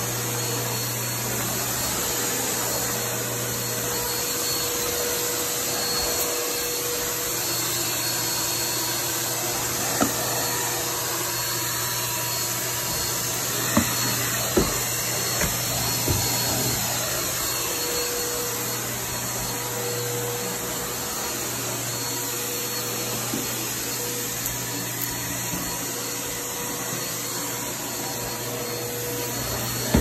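Eureka Maxima vacuum cleaner running steadily, its floor nozzle being pushed over carpet, with a steady motor hum and whine. A few sharp clicks come about a third to halfway through.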